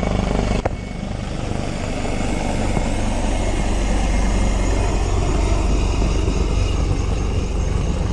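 Loud, steady engine drone with a low, fast beat underneath. A sharp click comes under a second in, after which the drone drops a little and slowly builds back up.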